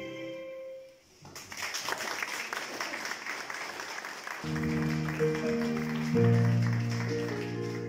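A clarinet's held note ends about a second in, followed by audience applause. From about four and a half seconds, steady held chords from another instrument come in over the fading clapping.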